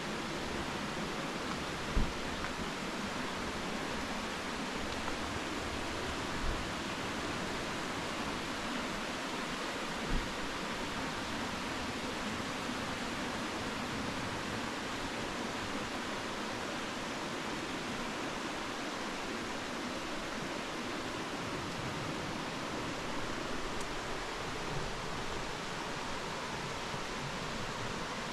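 Steady rush of a mountain stream's water, with a few dull low thumps at about 2, 6 and 10 seconds in.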